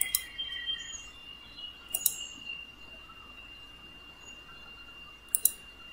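Quiet room tone with a steady faint high-pitched whine, broken by a few computer mouse clicks: one about two seconds in and a quick pair near the end. Faint bird chirps come in the first second.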